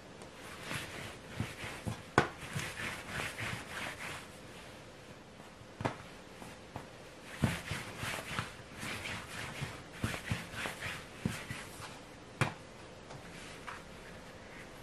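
Hands rolling bread dough back and forth on a wooden table to stretch it into a long rope: bursts of soft rubbing strokes, with a few sharp knocks of hands or dough against the wood.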